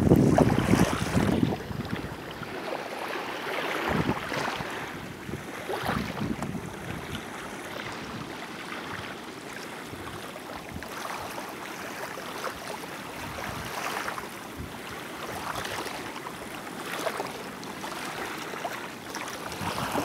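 Small waves lapping and washing at the shore in a steady rush, swelling softly every few seconds, with wind buffeting the microphone, heaviest in the first second or so.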